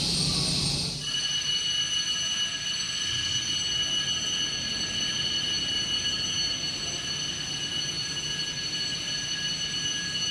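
High-speed train arriving at an underground platform and slowing to a stop behind the platform screen doors. About a second in, a steady high-pitched squeal of several tones sets in and holds over a low rumble.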